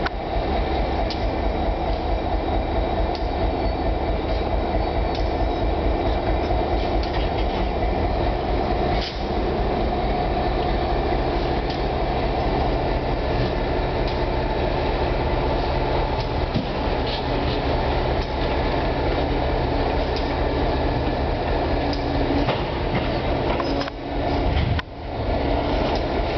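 Norfolk Southern work train of gondola cars rolling slowly past, with a steady rumble of running machinery and wheels on the rails.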